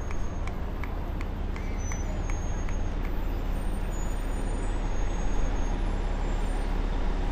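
Outdoor street noise along a parade route: a steady low rumble under an even hiss, with a few faint clicks in the first few seconds.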